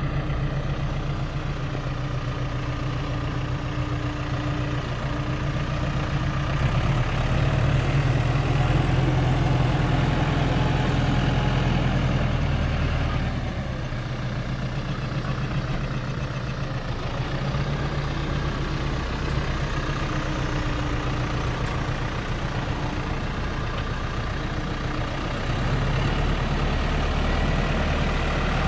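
Diesel tractor engine running steadily under varying load. It grows louder for a few seconds about a quarter of the way in, eases off, then grows louder again near the end.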